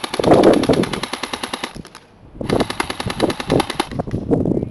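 Jing Gong M733 Commando airsoft electric gun firing full-auto, a fast even rattle of shots. Two long bursts, broken by a short pause about two seconds in.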